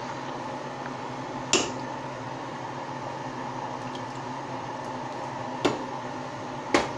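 Steady mechanical hum of a kitchen fan, with three sharp clinks of kitchenware: one about a second and a half in and two near the end.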